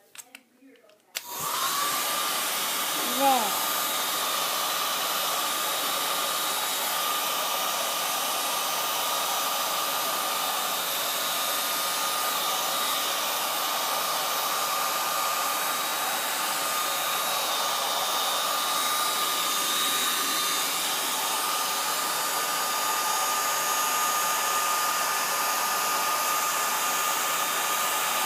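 White handheld hair dryer switched on about a second in, then blowing steadily on its low setting: an even rush of air with a thin steady whine from its motor.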